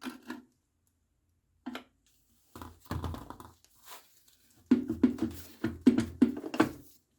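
Hand-tool work on a scooter engine's side cover: a series of knocks and clatters, with a short cluster about two and a half seconds in and a busier run from about four and a half seconds to near the end.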